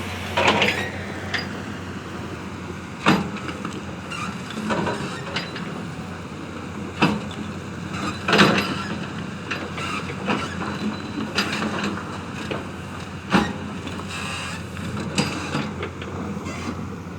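Construction-site machinery: a steady low hum, with sharp knocks every few seconds.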